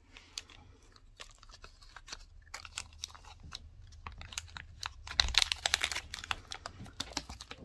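Bubble wrap and plastic packaging crinkling and crackling as hands rummage through wrapped packets, in a quick run of small crackles that grows thickest and loudest about five seconds in.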